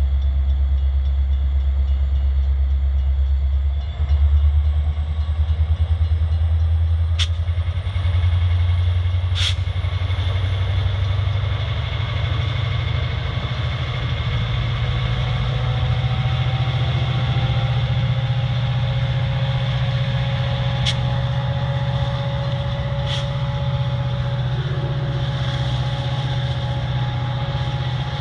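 Metra MP36PH diesel locomotive, a 16-cylinder EMD two-stroke, running with a strong low drone that steps up in pitch about four seconds in and again around twelve seconds as it throttles up to move the train away from the station. A faint high whine climbs slowly in pitch, with a few brief sharp clicks along the way.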